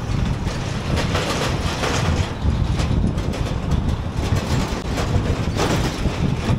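Road noise of a car driving at expressway speed: a steady low rumble and hiss of tyres and wind, with short sharp knocks about once a second.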